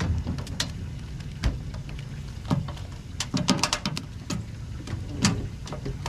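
Irregular light taps and clicks, a few close together about halfway through, over a low steady hum.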